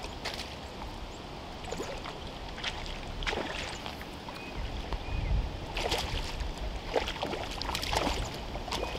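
A hooked trout splashing and thrashing at the water's surface as it is played in close to the bank: short, sharp splashes that come thicker and louder in the second half, with wind rumbling on the microphone.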